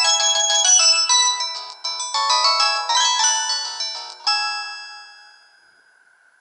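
Samsung GT-E2100 mobile phone ringtone: a quick synthesized melody of short electronic notes, ending about two-thirds of the way through on a final note that rings and fades away.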